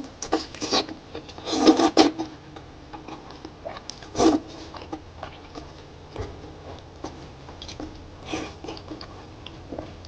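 Close-miked eating sounds: irregular bursts of chewing and mouth noise with small clicks, loudest twice in the first half.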